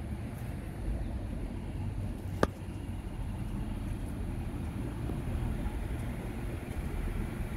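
Steady low rumble of street traffic, heard while walking along a sidewalk. One sharp click about two and a half seconds in.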